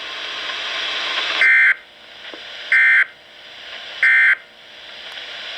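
Three short bursts of warbling digital data tones through a NOAA Weather Radio receiver, about a second and a half apart: the SAME end-of-message code that closes the weekly test broadcast. Receiver hiss fills the gaps between the bursts.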